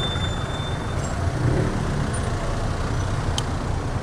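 A motorbike running at low speed in dense street traffic, a steady low engine and traffic rumble. A thin high whistle sounds during the first second, and a single sharp click comes near the end.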